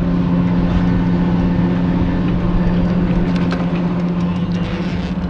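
Chairlift drive machinery running with a steady mechanical hum. Light clicks and rattles come in about halfway through as the mountain bike is hung on the lift's bike carrier.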